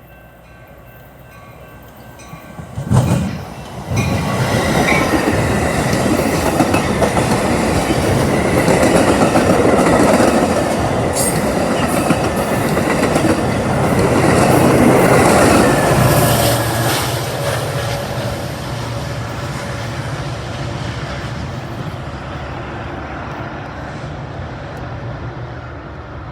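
Inbound train running through the station without stopping. It builds up over the first few seconds with a sharp loud burst about three seconds in, then clatters past on the rails for about twelve seconds, and fades slowly with a steady low hum as it moves away.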